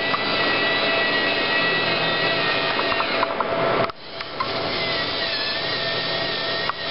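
LEGO NXT servo motors driving a SCARA robotic arm: a steady, buzzy geared whine that stops briefly just before four seconds in and starts again as the next motor moves.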